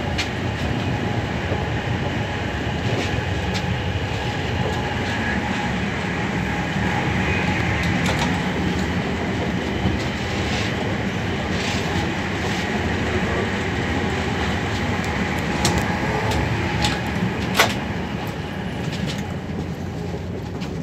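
ICE 4 high-speed train running at speed, heard from inside the passenger car: a steady rumble of wheels on rail with a faint whine from the traction motors. A few sharp clicks cut through, the loudest about 17 seconds in.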